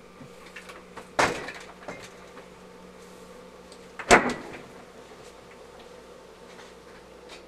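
Refrigerator door being shut: a sharp knock about a second in, then a louder hit about four seconds in as the door closes, over a faint steady hum.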